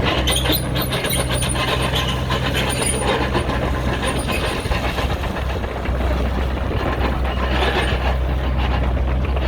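JCB 48Z-1 midi excavator's diesel engine running steadily, with continuous clattering and knocking from the machine at work; the engine note gets louder about six seconds in.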